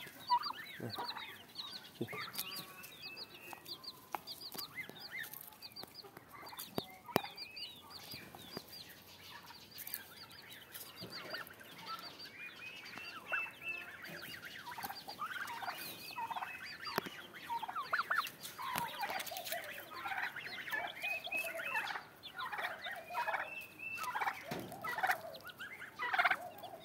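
Poultry calling: small chicks peeping high and fast, with louder repeated calls of chickens and turkeys growing busier through the second half.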